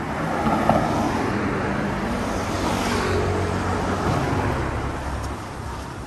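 A motor vehicle driving past close by on a city street, its engine and tyre noise swelling over the first second, holding, then fading near the end.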